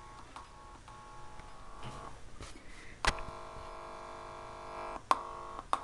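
Electrical buzz of several steady pitched tones from an ASUS VP228HE monitor's speakers, set off by touching the audio cable plugged into the monitor, which the uploader takes for a defect in the monitor. It is faint at first and becomes louder after a sharp click about three seconds in, with further clicks breaking it up.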